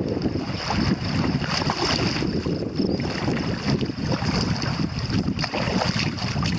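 Wind buffeting a kayak-mounted camera's microphone, with river water rushing and splashing against the kayak's hull as it runs through a riffle.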